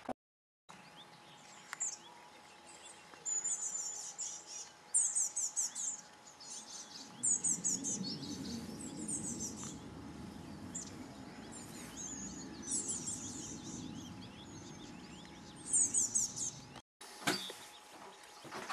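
Small songbird singing: short, high-pitched chattering phrases of rapid repeated notes, one every second or so, over a low rumble in the middle stretch.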